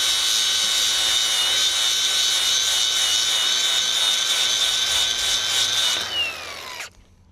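Electric angle grinder running on steel pipe with a high whine that wavers slightly as it bites, cleaning up a torch-cut cope. About six seconds in it is switched off and the whine falls away as the disc spins down.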